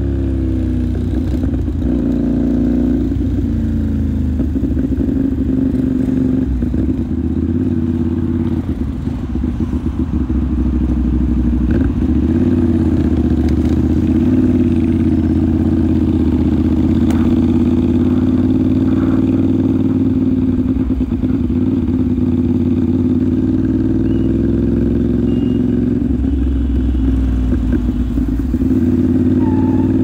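CFMOTO 450SR motorcycle's parallel-twin engine running under way, its revs rising and falling in the first few seconds, then holding fairly steady.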